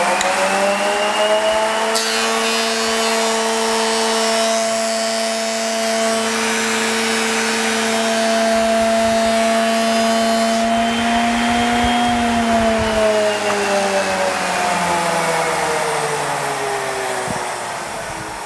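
Makita 2040 thickness planer on a test cut with freshly sharpened knives. The motor's whine is still rising as it comes up to speed, then a board is planed through for about eight seconds, adding a rough hiss of cutting. About twelve seconds in it is switched off and the whine falls away as the cutterhead winds down.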